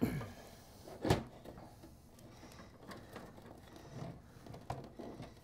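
Corsair AX850 power supply being pulled out of the bottom of a PC case: one sharp knock about a second in, then faint scraping and small clicks as the unit and its cables slide out.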